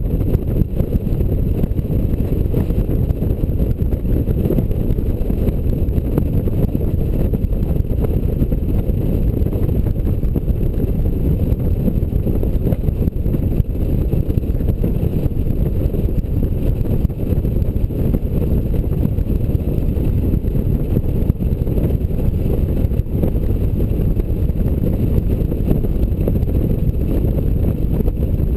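Honda Gold Wing motorcycle riding at road speed, heard from a bike-mounted camera: a steady, low rush of wind over the microphone with engine and road noise blended in.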